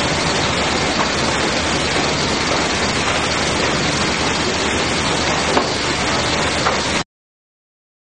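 Steady industrial din of a sawmill's lumber-handling machinery: boards moving on chain transfer conveyors, with a few light knocks. It cuts off abruptly about seven seconds in.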